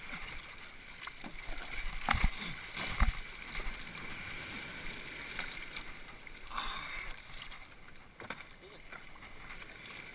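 Sea water sloshing and splashing against a paddleboard as it rides over small swells, with two sharp thumps about two and three seconds in.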